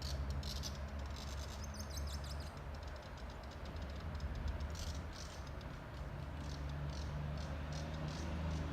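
Outdoor ambience: a steady low hum with short, high-pitched chirps coming and going, thickest in the first few seconds.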